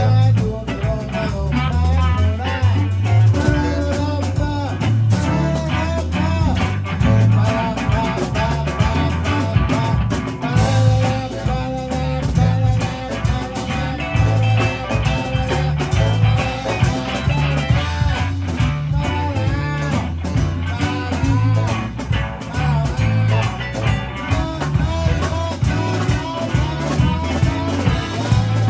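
Live blues band playing: electric guitar bending notes over bass and drum kit with a steady beat.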